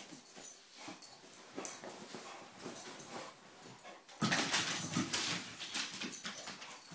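A bulldog and a boxer tussling over a beanbag: dog noises mixed with scuffling, which turn louder and noisier about four seconds in.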